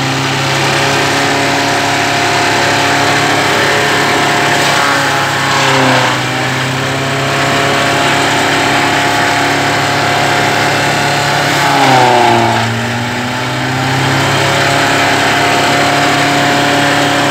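Rice straw chopper driven off a tractor, with the tractor engine and chopper drum running together at a steady hum. Twice, about six and twelve seconds in, the pitch sags briefly and climbs back, the machine bogging under load as straw goes in.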